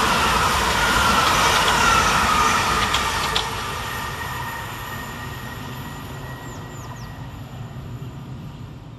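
A pair of Class 387 Electrostar electric multiple units running through the station, with a loud rush of wheels on rail and a whine falling in pitch as the train goes past. The sound then fades steadily as the train draws away.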